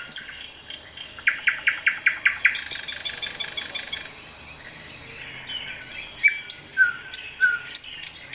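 Several birds singing and calling in a forest at dawn: sharp repeated chips, a fast run of about eight notes a second a second or so in, a buzzy call around three seconds in, then a brief lull before more chips and short falling whistles.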